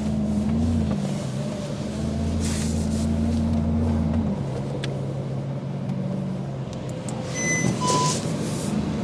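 Car engine running steadily, heard from inside the cabin, its pitch dropping about a second in and again a little past the middle. Near the end comes a short electronic chime of a couple of beeps.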